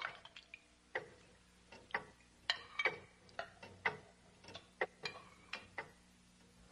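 Pendulum wall clock ticking quietly, about two ticks a second.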